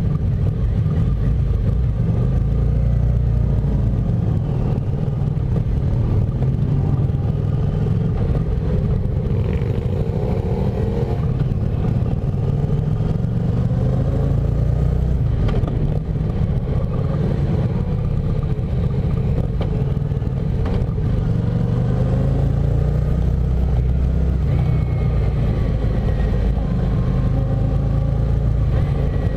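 Motorcycle engine running steadily at low road speed, with the engines of other motorcycles in the column rising and falling in pitch around it.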